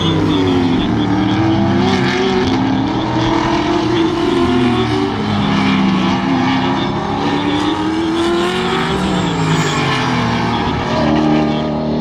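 Several V8 saloon race cars running through a corner, their engine notes overlapping and rising and falling in pitch as they lift off, change gear and accelerate away.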